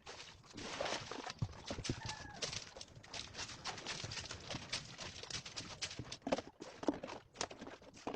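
Irregular knocks and clatter over a steady hiss, with a brief faint squeak about two seconds in.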